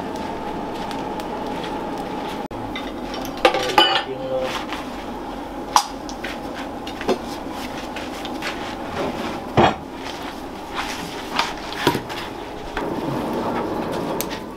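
Scattered metallic clanks and clinks of blacksmith's tools and steel being handled, a few sharper than the rest, over a steady hum with a faint whine.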